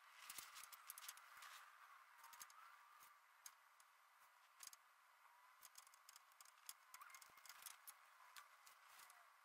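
Faint steady hiss of a gas brazing torch flame, with irregular small clicks and crackles as a steel chassis bracket is brazed.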